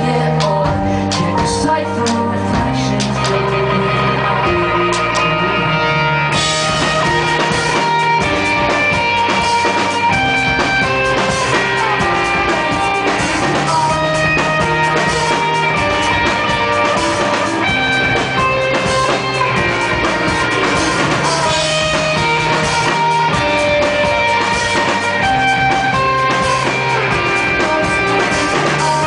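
Live band playing a rock song, with electric guitar and drum kit. About six seconds in the cymbals come in and the band gets fuller.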